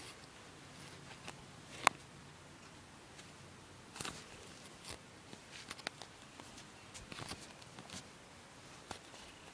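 Scattered light taps and shuffles of someone stepping about on concrete in socks, along with handling noise from the phone, with one sharp click about two seconds in.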